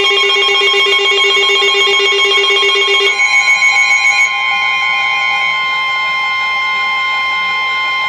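Emergency Alert System alert tones. A fast-pulsing, ringing tone runs for about three seconds and then gives way to a steady, high-pitched attention tone. The tones signal that a severe thunderstorm warning message is about to follow.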